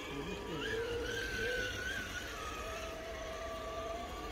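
Electric motors and gear trains of RC rock crawlers whining, several tones drifting up and down in pitch as the throttle changes.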